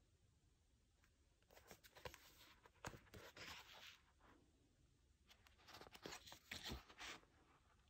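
A paperback manga volume being handled and opened: two spells of soft paper rustling with crisp page flicks and taps, the first about one and a half seconds in and the second around five to seven seconds in.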